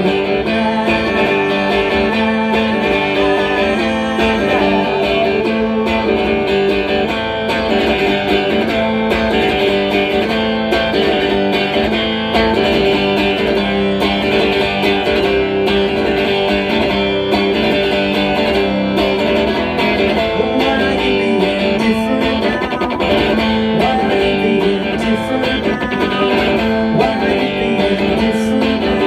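Electric guitar strummed live through an amplifier, a continuous instrumental passage of changing chords at a steady level.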